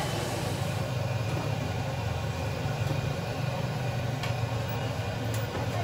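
Steady low mechanical hum with an even background noise and a few faint clicks.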